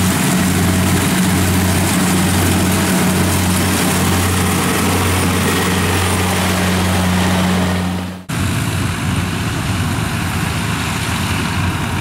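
Kubota DC70 combine harvester's diesel engine running steadily under load as it cuts standing rice, with a low hum that pulses slightly about once a second. About eight seconds in the sound cuts abruptly to a rougher, noisier engine: a small rice-hauling tractor loaded with grain sacks.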